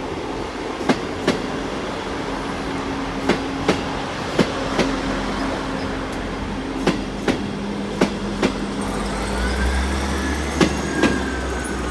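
Class 158 diesel multiple unit pulling out, its wheels clicking over rail joints in pairs with a steady engine tone under them. Near the end a low rumble grows and a rising whine comes in.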